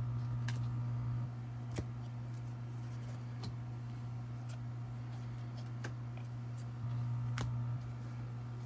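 Paper baseball cards being handled and flipped one by one off a stack, a sharp card click every second or two, over a steady low hum that swells twice.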